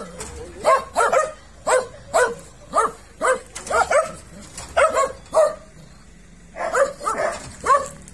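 Black-and-tan dachshund barking over and over, about two barks a second, with a pause of about a second near two-thirds of the way through before it barks again.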